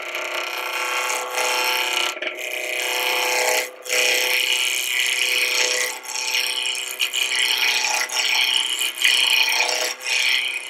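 A spindle roughing gouge cuts a square wood blank spinning on a wood lathe, roughing it down to round. The harsh, continuous cutting noise rides over the lathe's hum and breaks off briefly a few times as the gouge leaves the wood.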